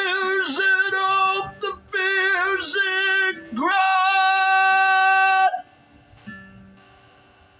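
A man sings loud, high phrases over a strummed acoustic guitar. He holds the last note for nearly two seconds and breaks off abruptly, and a single guitar note then rings out and fades.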